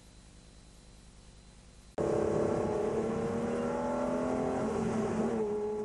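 Aston Martin DB9's V12 engine, faint and steady at first. About two seconds in it cuts to a loud pull under acceleration, heard from inside the cabin, with the pitch rising slowly. Near the end the pitch steps down and then holds steady.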